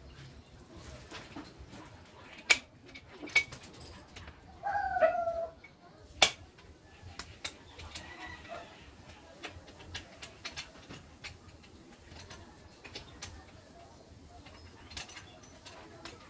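Scattered sharp clicks and knocks of tools during rear tire work on a Honda CRF150, two of them much louder than the rest. A short chicken call sounds about five seconds in.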